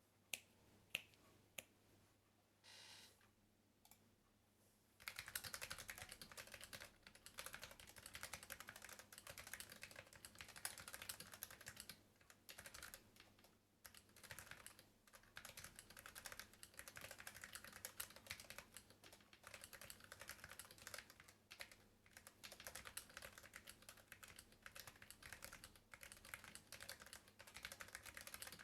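Modecom Lanparty Blade low-profile mechanical keyboard with stock Kailh x Dareu Choc Red linear switches being typed on: a few separate keystrokes at first, then fast, continuous typing from about five seconds in.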